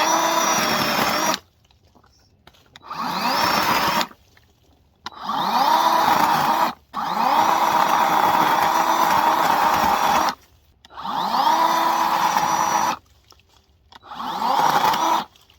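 Parkside PKSA 20-Li B2 20-volt cordless chainsaw running in about six short bursts, each rising in pitch as the motor and chain spin up, then holding steady and cutting off suddenly when the trigger is released.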